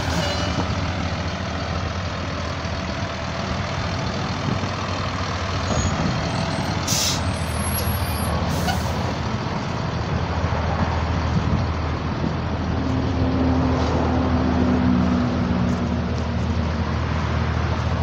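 Diesel engine of a Blue Bird All American school bus running steadily as the bus is driven slowly forward. Two short hisses of air from the air brakes come about seven and nine seconds in.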